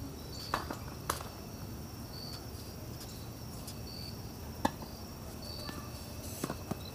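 Crickets chirping, one short high chirp about every second and a half to two seconds. Tennis balls are struck and bounce as sharp knocks during the rally: two in the first second or so, the loudest a little past halfway, and two close together near the end.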